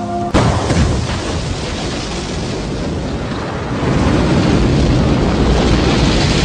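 Rocket engines igniting on the launch pad: a sudden loud, continuous rumble starts a moment in and grows louder about four seconds in.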